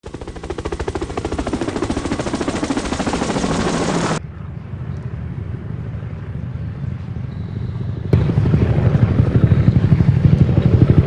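Helicopter rotor noise, a fast even chopping pulse, in three stretches that cut abruptly about four seconds in and again about eight seconds in. The last stretch is the loudest and deepest.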